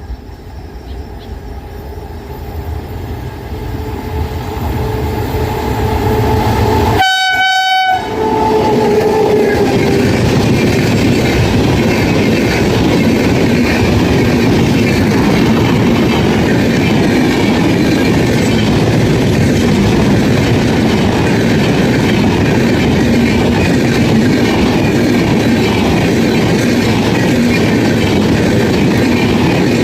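Indian Railways express train hauled by an electric locomotive approaching and passing close at speed. The locomotive's horn sounds as the train nears and drops in pitch as it goes by, then the coaches run past in a loud, steady rush with rhythmic wheel clatter. The sound cuts out for under a second about seven seconds in.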